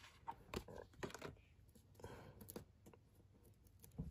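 Faint, scattered light clicks and taps from handling paper and foam adhesive: mini dimensional foam dots being peeled from their sheet and pressed onto a small cardstock banner strip. The loudest tap comes near the end.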